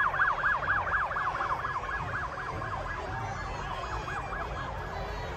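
Police car siren on its fast yelp setting, rising and falling about five times a second, fading away and gone by about four and a half seconds in, over a low steady rumble.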